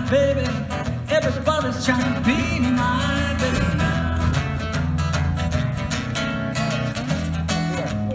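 Acoustic guitar strummed in a steady country-style song, with a man's singing voice over it in the first few seconds.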